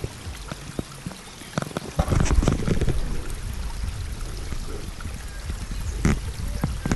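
Close handling noise: rustles, clicks and soft knocks as a sandwich is lifted and held in front of a chest-mounted camera, louder about two to three seconds in and again near the end, over a steady rushing background.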